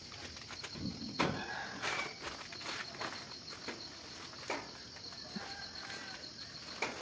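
Crickets chirping steadily in the background, with scattered knocks and rustles from a person moving on a floor mat during leg-raise exercises. The sharpest knock comes about a second in.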